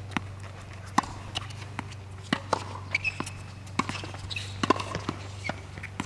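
Tennis point on a hard court: sharp pops of the ball struck by rackets and bouncing on the court, with running footsteps and a few short squeaks, over a steady low hum.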